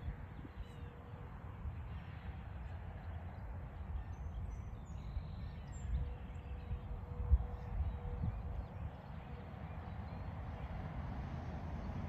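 Wind rumbling on the microphone in uneven gusts, with a few faint, short bird calls; no siren sounding.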